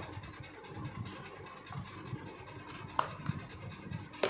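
Hard plastic planter pots being handled, scraping lightly against one another, with a couple of light knocks, one about three seconds in and one near the end.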